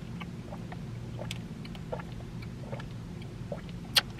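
Steady low hum inside a parked car, with faint small mouth clicks from sipping through a straw and chewing, and one sharp click about four seconds in.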